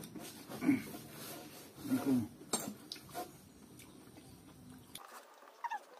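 People eating spicy instant noodles close to the microphone: irregular chewing and mouth noises, with a few sharp utensil clicks against the plate.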